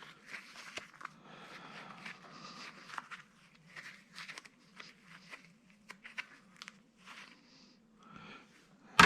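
Faint rustling, crunching and scattered small clicks of copper wire and stripped plastic insulation being handled.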